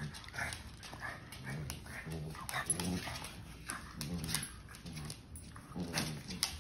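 A pug and a basset hound puppy play-fighting: repeated short, low growls and grunts, with claws clicking and scrabbling on a hardwood floor.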